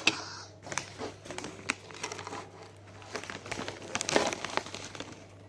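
Plastic snack packaging crinkling and rustling by hand, with irregular sharp crackles; a loud crackle at the start and a denser patch about four seconds in.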